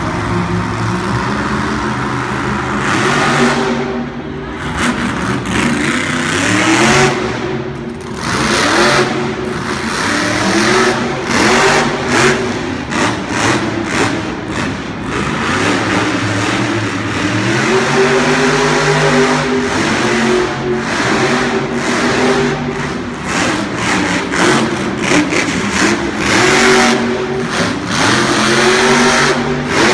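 Monster truck's supercharged V8 revving hard and repeatedly, its note climbing and dropping with each burst of throttle during a freestyle run.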